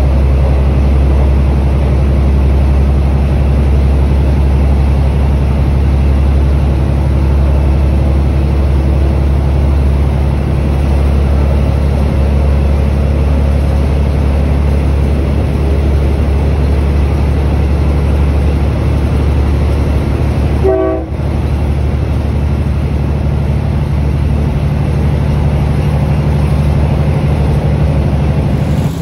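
Diesel passenger train running along the track, heard from an open carriage window: a steady, loud, low rumble of the wheels and engine.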